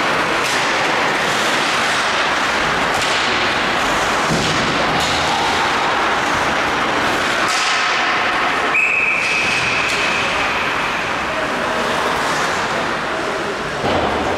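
Ice hockey rink sound: a steady wash of skates scraping and carving the ice, with one long, high referee's whistle blast about nine seconds in and a sharp thump near the end.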